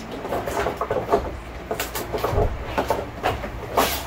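Clear plastic wrapping crinkling and tearing as a utility knife cuts it off a new roller blind, in irregular crackles and rustles with a few sharper rips.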